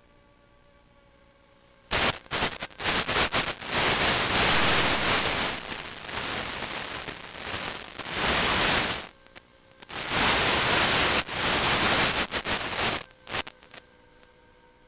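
Loud radio static hiss from an analog 5.8 GHz FPV video receiver, cutting in abruptly about two seconds in and flickering on and off before dropping out near the end. It is the sign of the video link's signal breaking up.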